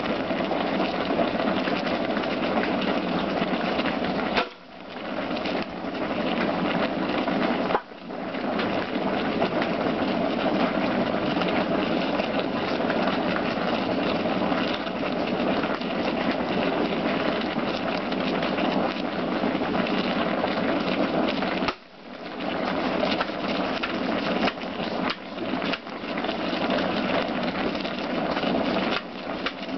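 Large pot of ayahuasca brew at a rolling boil over a wood fire: a steady, dense bubbling hiss. It is broken by sharp clicks about 4, 8 and 22 seconds in, after each of which the sound dips briefly and swells back.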